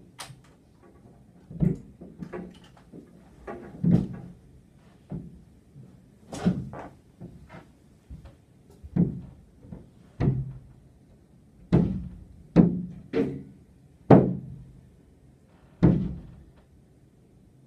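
A window pane being knocked and bumped from outside and heard through the glass: a rope-access window washer's boots, bucket and scrubbing pole strike the pane as he works. About a dozen dull, irregular knocks, a few of them sharper and louder.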